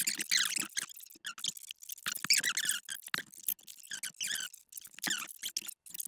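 Rapid, irregular squeaks and scrapes of a plastic coating being chipped and peeled off a phone.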